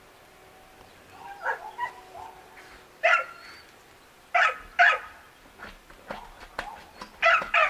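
A dog barking in short, sharp barks: a few softer yips about a second and a half in, then a loud bark about three seconds in, a quick pair of barks near the middle and another pair near the end.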